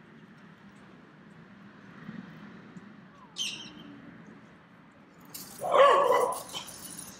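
A dog gives a single loud yelp near the end. A brief high chirp comes about halfway through.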